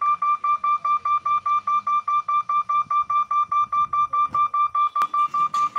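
Level-crossing warning alarm beeping a steady high tone about four times a second as the boom barriers lower, with a single sharp click near the end.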